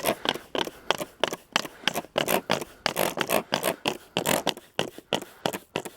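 Handling and movement noises: a quick, irregular run of scuffs and scrapes, several a second.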